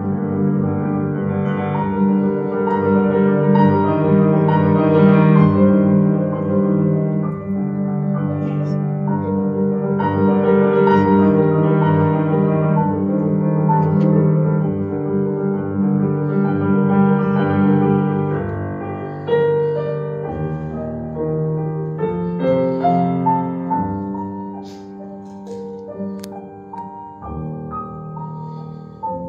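Solo concert grand piano played live: full sustained chords, then thinning out about two-thirds of the way through to softer separate notes that grow quieter toward the end.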